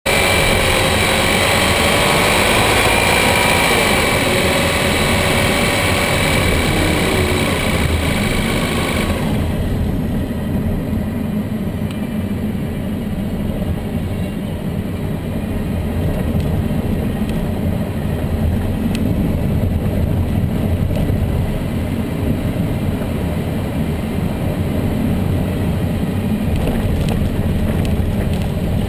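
Volkswagen Tiguan engine running with a steady low rumble, the noise that is blamed on a worn engine mount. For the first nine seconds or so a high steady whine and some wavering tones sound over it, then drop away suddenly.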